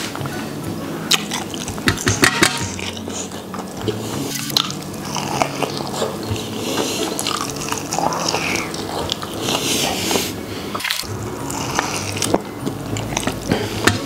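Close-up eating sounds: biting into and chewing sauce-coated fried chicken, with wet smacking mouth noises and small clicks.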